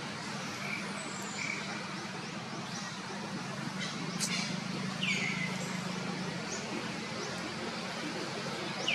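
Birds calling: a loud call that sweeps down and levels off, repeated about five seconds in and again at the end, with short faint chirps between, over a steady low hum. A single sharp click sounds about four seconds in.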